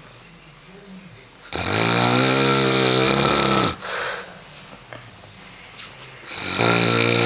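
A man snoring loudly in his sleep. Two long, buzzy snores, one about a second and a half in and another starting near the end, with a short weaker snort after the first and quieter breathing between.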